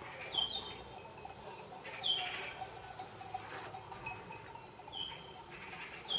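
Goat bells clinking irregularly as a herd moves, a few short ringing strikes a second or more apart.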